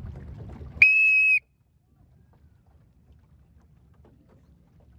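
A single short blast on a coach's whistle: one steady, shrill tone about half a second long, coming about a second in. Before it, wind buffets the microphone.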